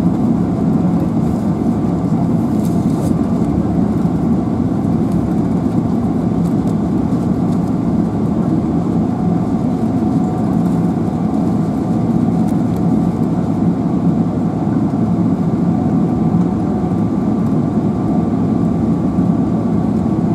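Cabin noise of a Boeing 777-300ER taxiing, its GE90 turbofans at low taxi thrust: a steady low hum with faint steady whine tones above it.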